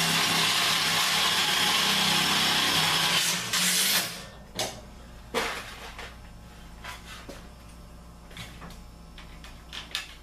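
Power drill running steadily, driving a sheet-metal screw through the furnace cabinet into the divider behind it, two layers of metal, for about three and a half seconds, then one short burst before it stops. A few light clicks and knocks of handling follow.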